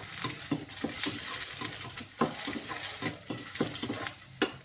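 A steel spatula scraping and knocking around a steel kadai over a steady sizzle, as shallots, green chillies and curry leaves are sautéed in hot oil. The scrapes come irregularly, several a second.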